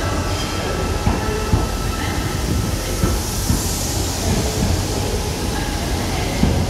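Class 88 locomotive and its container wagons rolling through a station: a steady rumble of wheels on rail with scattered sharp clicks as wheels cross rail joints. A whine of several steady tones fades out about three seconds in.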